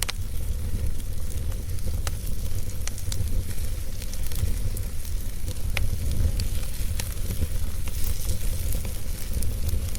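Wood fire burning with scattered sharp crackles and pops over a steady low rumble.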